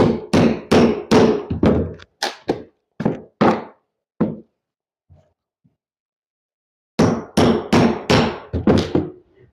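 Hammer blows on a nail puller or pry bar in old subfloor wood, about three strikes a second, working out nails whose heads have broken off. There are two runs of blows with a pause of a couple of seconds between them.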